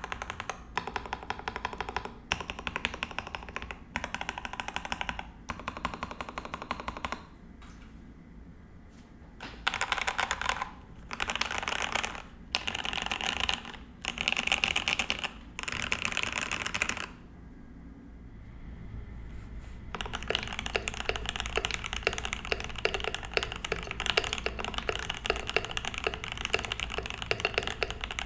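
Typing on a RAMA U80-A mechanical keyboard with a brass plate, PBT keycaps and lubed, filmed Gateron Oil King linear switches: bursts of rapid keystrokes separated by short pauses. After a pause about two-thirds of the way in, steady continuous typing follows with the W02-A silicone dampener fitted.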